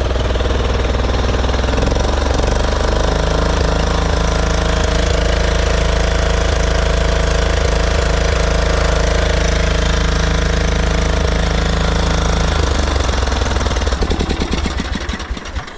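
Craftsman LT1500 riding mower's small engine running steadily on a replacement aftermarket carburetor whose low-speed jet has been drilled out a size bigger to stop it surging. Near the end the beat slows and the sound fades as the engine winds down.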